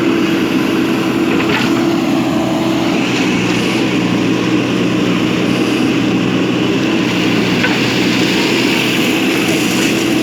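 JCB backhoe loader's diesel engine running steadily at a constant pitch as the machine works.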